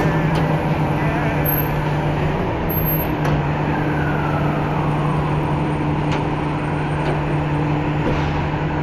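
Garbage truck's diesel engine running with a steady low hum, over street traffic noise. A faint falling whine passes about four seconds in.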